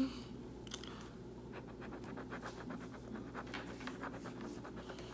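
A yellow marker scratching on notebook paper in a run of quick, short colouring strokes, several a second.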